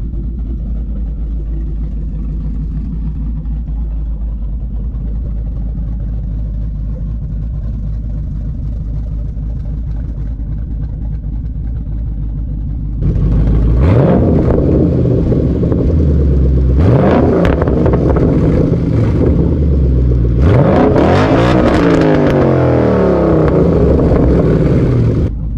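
Ford Mustang Boss 302's 5.0-litre V8 idling steadily through newly fitted Roush axle-back mufflers, with a deep exhaust note. About halfway through it is blipped and revved several times, the pitch climbing and falling with each rev, before settling back to idle at the very end.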